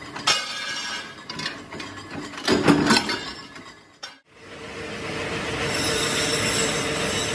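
Metal clanks and knocks as steel wheel-disc blanks are handled at a heavy power press, the loudest a couple of seconds before a sudden cut. After about four seconds, a steady noise with a faint hum follows.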